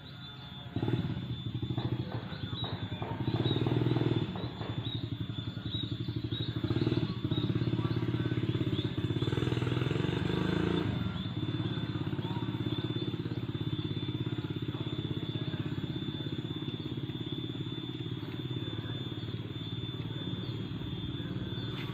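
Motorcycle engine running while being ridden, opening up and easing off several times in the first half, then running more evenly.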